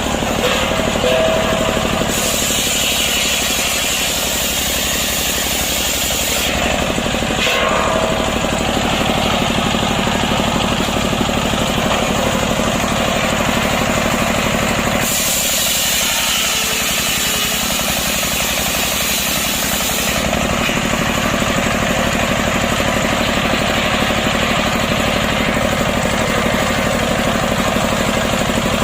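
Two-stroke chainsaw running under load as it rips lengthwise through a green, freshly felled breadfruit log. Its sound stays steady and loud, changing in tone every few seconds as the cut goes on.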